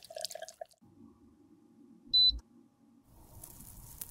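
Small wet clicks of a thin pick working in cream concealer for under a second, then a single short, high electronic beep about two seconds in, the loudest sound. A faint hiss follows near the end.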